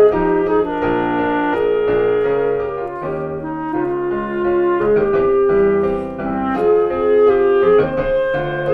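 Clarinet and piano playing a slow, lyrical arrangement of a Japanese graduation choral song: held clarinet melody notes over flowing piano chords.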